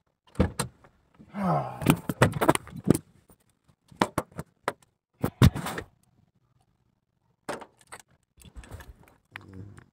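Handling noise from a phone being moved about against cloth: clusters of sharp knocks, clicks and rustles, with a quiet gap a little past the middle.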